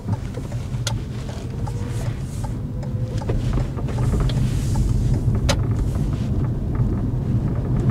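Car running on the road, heard inside the cabin: a steady low engine and tyre rumble that grows gradually louder, with a couple of sharp clicks.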